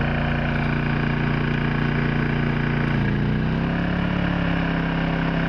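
Honda EU2000i inverter generator's single-cylinder four-stroke engine running steadily, then speeding up with a rise in pitch about three seconds in and settling at a higher speed: the Eco-Throttle raising engine speed to meet the added load of a hair dryer being switched on.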